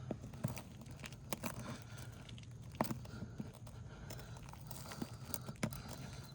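Small pry bar working a roofing nail out from under asphalt shingles: scattered clicks and scrapes with the crinkle and tearing crackle of the shingle being lifted.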